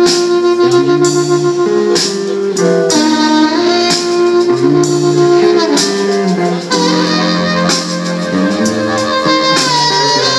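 Live electric blues band playing an instrumental: amplified harmonica played cupped against a handheld microphone carries long held and bending notes over electric guitars and a drum kit.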